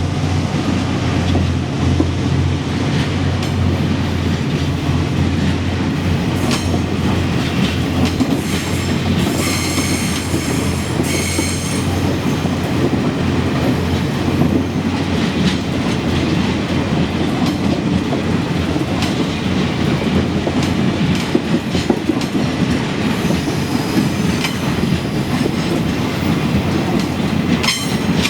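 Freight train wagons rolling past at close range, wheels clattering steadily over the rail joints. A brief high wheel squeal comes about ten seconds in, and a low engine hum fades over the first dozen seconds.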